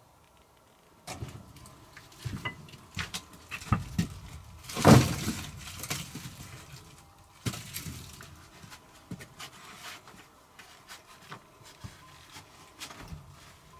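A person moving about and handling gear inside a small stone hut: scattered knocks, clatter and rustling, with footsteps on stone. The loudest is a brief harsh scrape or rustle about five seconds in.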